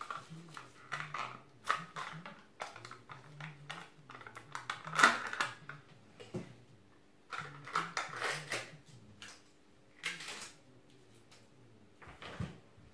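Gloved hands handling a plastic jar of hair colouring wax and items on a table: irregular clicks, taps and rustles, the loudest about five seconds in.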